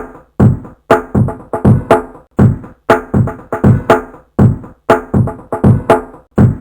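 Drum loop: a short pattern of several drum hits that repeats about every two seconds.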